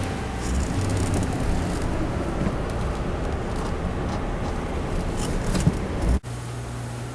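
Vehicle noise, a steady rumble and hiss like a car driving, cut off suddenly about six seconds in and replaced by a steady low hum.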